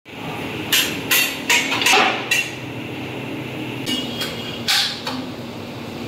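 A run of sharp knocks and clinks over a steady low hum: several in quick succession in the first couple of seconds, then a few more, spaced out, in the second half.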